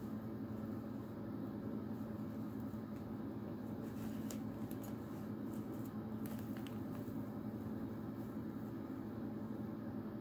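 A steady low hum runs underneath, with a few faint clicks and crackles of the stiff plastic purse between about four and seven seconds in, as a cat chews and paws at it.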